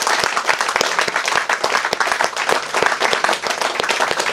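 Audience applauding: dense, steady hand-clapping at the end of a song.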